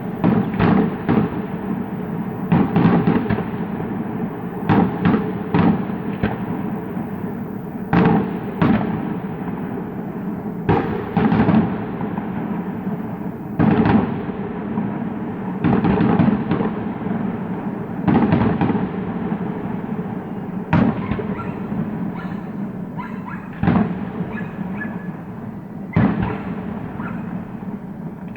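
Fireworks display: shell bursts booming every second or two, each ringing out after the bang, over a continuous rumble.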